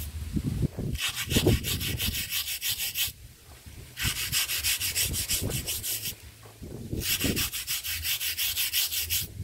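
A hand scrubber rubbed briskly back and forth over the rough face of a round grinding stone. The scrubbing comes in three spells of rapid, even strokes, with short pauses between them.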